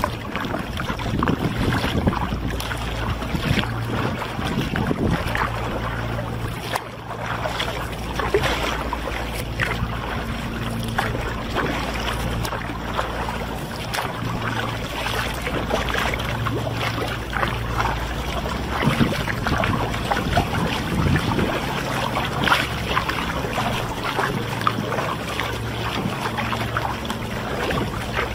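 Water splashing and dripping from a sea kayak's paddle strokes, with water lapping along the hull in irregular small splashes. A steady low wind rumble on the microphone runs underneath.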